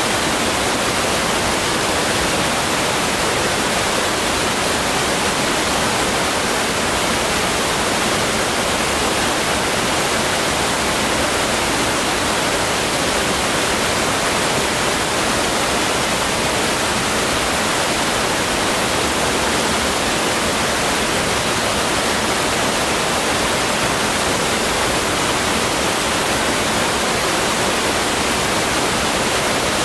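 A steady, unbroken rushing hiss that stays level throughout, with no distinct knocks, voices or tones.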